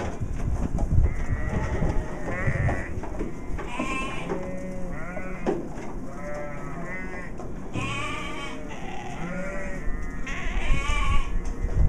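A flock of sheep bleating again and again, several quavering calls overlapping one after another, over a low rumble.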